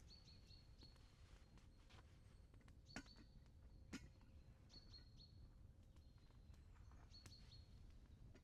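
Faint small-bird calls: short high chirps on one pitch, repeated every second or two, over a low rumble, with two sharp clicks about three and four seconds in.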